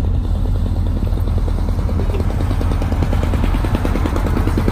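A boat's engine running steadily, with a fast, even pulse over a deep, constant low drone.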